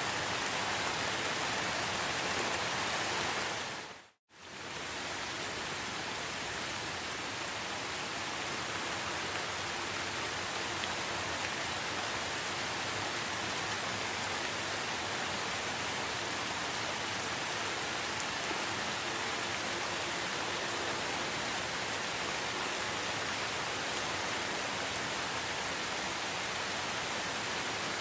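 Steady heavy rain in a rainforest, a dense even hiss. About four seconds in it fades to silence for a moment and fades back up.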